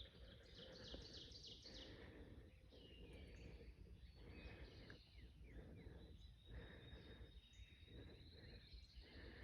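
Quiet outdoor ambience: small songbirds chirping, with a short rapid trill about a second in, over a faint low rumble.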